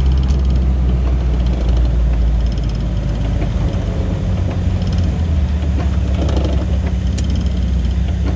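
Volkswagen Fusca's air-cooled flat-four engine running steadily at low revs in slow traffic, heard from inside the cabin, with light intermittent ticking over the engine hum.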